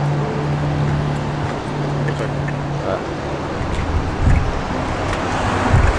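Wind buffeting the microphone outdoors over a steady low hum that fades out about halfway through, with two low thumps from gusts near the end.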